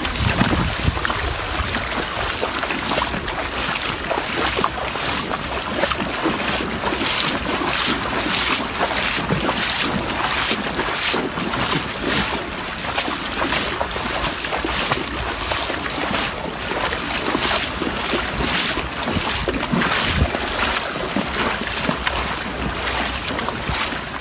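Shallow river water rushing and splashing as a wader moves through it, with many short splashes and wind buffeting the microphone.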